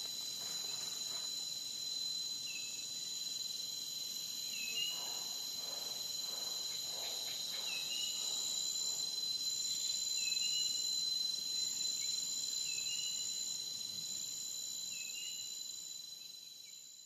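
A steady, high-pitched insect chorus with a short chirp repeating every couple of seconds.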